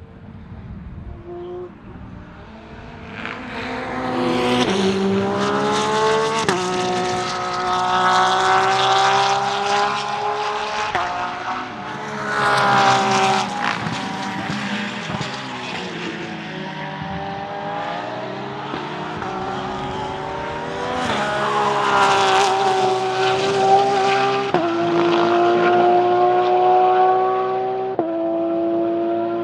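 Porsche 992 GT3 R's naturally aspirated 4.2-litre flat-six racing engine under hard acceleration. The pitch climbs steadily, then drops abruptly at each quick upshift, and the car passes close by twice.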